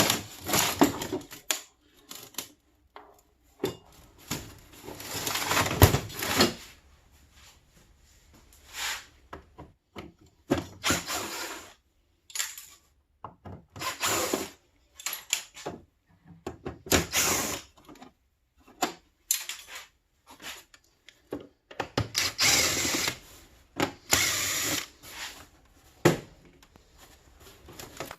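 Handheld power drill run in short bursts, about ten of them lasting a second or two each, as scrap is taken apart.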